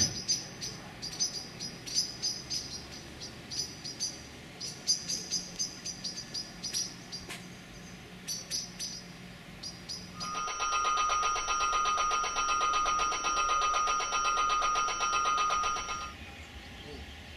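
Small birds chirping repeatedly for about ten seconds. An electric bell then starts ringing steadily with a rapid pulse, louder than the birds, and cuts off abruptly about six seconds later.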